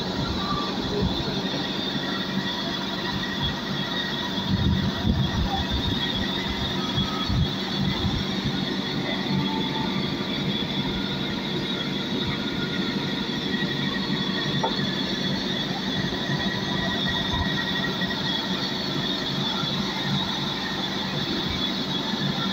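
Band sawmill running: a steady hum from the belt-driven electric drive under a continuous high squeal. A few low knocks come about four to seven seconds in.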